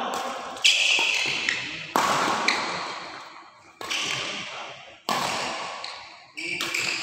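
Badminton rackets striking the shuttlecock in a doubles rally: five sharp hits about a second and a quarter apart, each ringing on in the large hall's echo.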